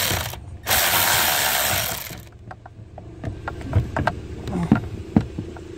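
Cordless drill-driver with a 7 mm socket running in two short bursts, the second about a second and a half long, followed by light clicks and knocks of the socket against the trim; the socket cannot reach the recessed screw.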